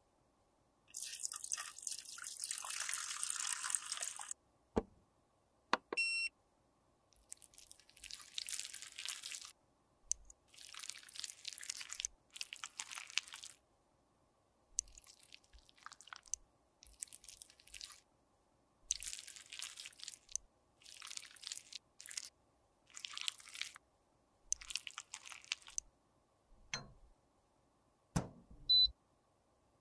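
Thick, sticky cream lip colour being stirred and scraped inside a small plastic jar: a run of wet, squelchy strokes, each about a second long, with short pauses between them. A brief electronic beep comes about six seconds in, and a few clicks and low thumps near the end.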